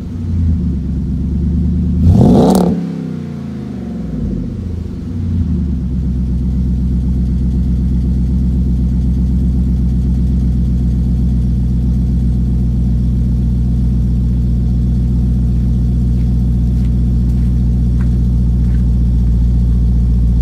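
2007 Jeep Grand Cherokee SRT8's 6.1-litre Hemi V8 breathing through a Borla S-Type cat-back exhaust. It gives a few throttle blips, the sharpest and loudest about two seconds in, then settles into a steady, even idle.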